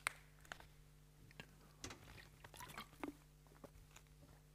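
Near silence: room tone with a faint steady hum and scattered small clicks and rustles.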